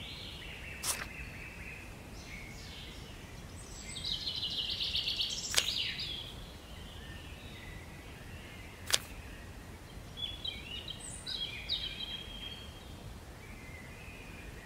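Birds singing and chirping over a low background hiss, with a fast trill about four seconds in. Three sharp clicks come a few seconds apart.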